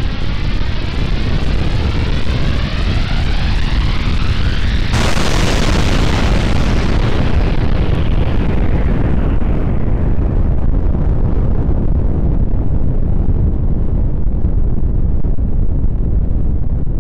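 Nuclear explosion sound effect: a deep, continuous rumble with a sweeping whoosh, then a sudden blast about five seconds in whose hiss dies away over the following seconds while the low rumble carries on.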